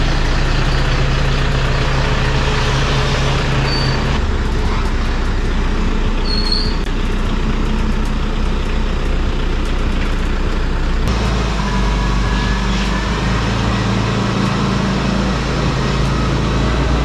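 Toyota Fortuner SUV engine running at low speed as the car is driven out. The steady low engine note shifts abruptly twice.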